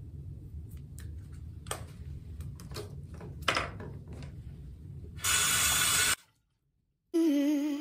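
Light clicks and knocks of toiletries being handled at a bathroom sink over a low steady rumble, then a loud hiss lasting about a second. The sound then cuts out and background music with wavering held notes starts near the end.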